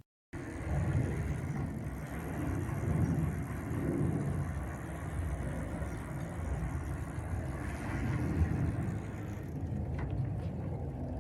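Steady low rumbling noise with no clear rhythm, rising and falling slightly in level.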